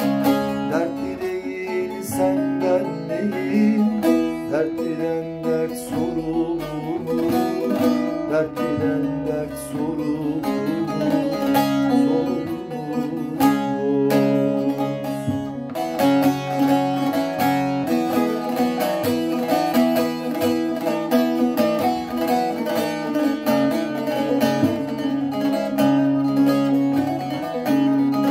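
Bağlama (saz), a Turkish long-necked lute, played solo: a fast plucked melody with many quick strokes, carrying on without pause throughout.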